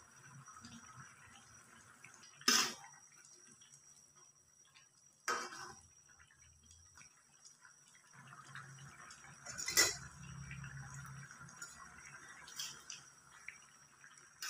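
Metal ladle clanking against a metal wok and bowl while stirring curry: a few sharp, separate clanks a few seconds apart, the loudest about ten seconds in, with light scraping between.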